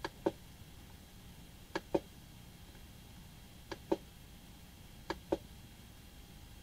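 Clicking of an Ender 3D printer's rotary menu knob being pressed and released as its LCD menu is worked: four quick double clicks, the pairs spaced a little under two seconds apart.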